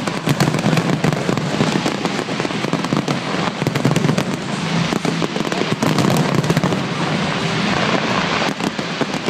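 Fireworks display going off without a break: a dense, rapid stream of bangs and crackles.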